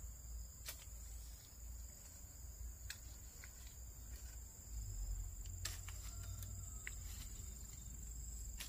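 Insects trilling steadily at one high pitch, with a few sharp clicks and a low rumble in the background.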